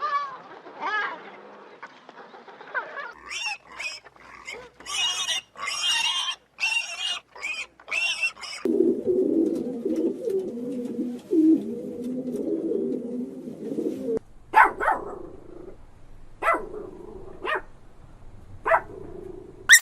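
Animal calls in several takes: a rapid run of short, high-pitched cries, then about five seconds of a dense, lower, rough sound, then a few separate short calls near the end.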